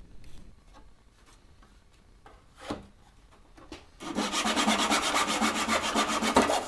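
Buck Bros backsaw cutting a hardwood strip in a miter box: loud, quick back-and-forth saw strokes that start abruptly about four seconds in. Before that there are only a few faint taps and one short scrape.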